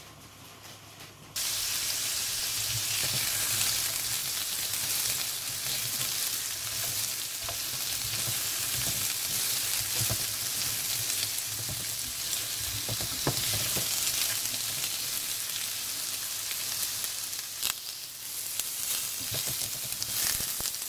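Sliced carrots sizzling in sesame oil in a nonstick frying pan as they brown, stirred with a slotted spatula that scrapes and taps the pan now and then. The sizzle comes in suddenly about a second and a half in, then holds steady.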